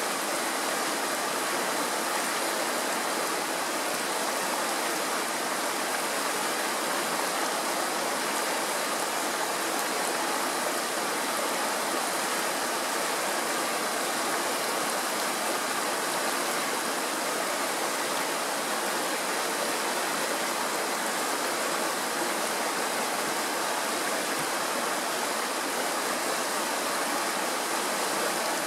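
Shallow mountain stream rushing and splashing over rocks, a steady even rush that sits mostly in the middle and high range with little deep rumble.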